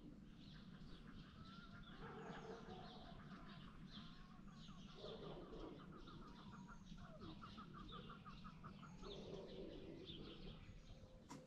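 Faint birds chirping and calling, with short trilled phrases repeated again and again.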